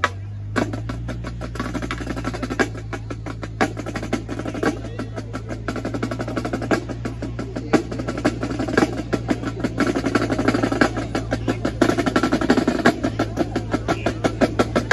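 Marching drum line playing a fast cadence on snare drums, dense rapid strokes and rolls punctuated by sharp accented hits, growing a little louder toward the end.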